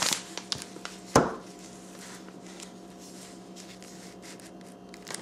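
Hands handling items on a tabletop: rustling at the start, one sharp knock about a second in, then faint scattered ticks.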